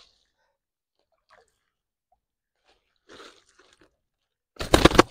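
Nylon gill net rustling and crackling as it is handled: faint rustles at first, then a short loud burst of crackling near the end.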